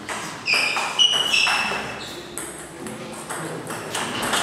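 Table tennis ball clicking against paddles and the table during a doubles rally, several sharp ticks in quick succession. There are a few short high-pitched squeaks in the first half.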